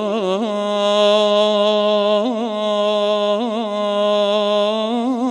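A man singing solo, unaccompanied, in the manner of an Eastern Anatolian türkü: one long held note with short ornamental turns a few times along it.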